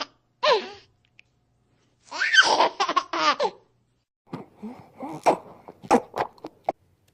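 Cartoon baby girl voice sound effects: a short vocal burst, then giggling laughter about two seconds in, followed by a run of short choppy giggles and breaths.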